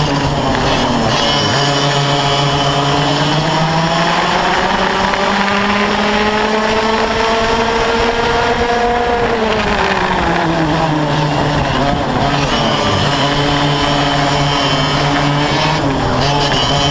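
Yamaha KT100 single-cylinder two-stroke kart engine with a Y-pipe exhaust at race speed, its pitch climbing steadily for several seconds as it pulls down a straight. About nine seconds in the pitch drops sharply as the kart slows for a corner, and the engine then runs on at lower revs.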